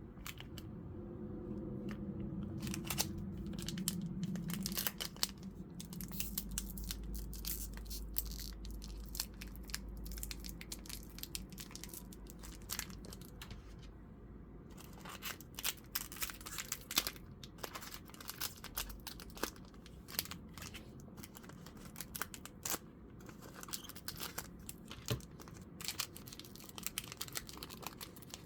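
A Pokémon trading card booster pack being opened and handled: the foil wrapper crinkling and tearing, and cards rustling and flicking against each other in many small sharp clicks.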